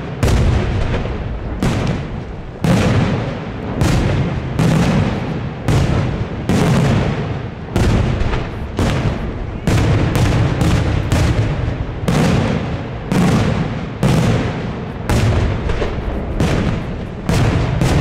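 Daytime firework shells bursting overhead in a continuous barrage of loud bangs, about one to two a second, each with a short echoing tail.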